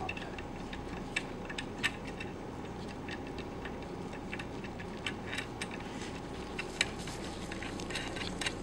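Light, irregular metal clicks and taps of small parts being handled as the nut is fitted onto a vacuum pump's piston assembly, over a steady low hum.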